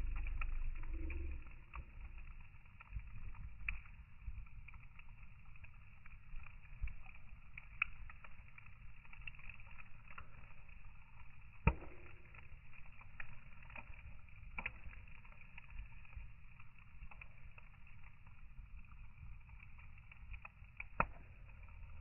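Wood fire burning, its sound slowed down: a low rumble with scattered crackles and pops, two sharp loud pops, about twelve seconds in and near the end.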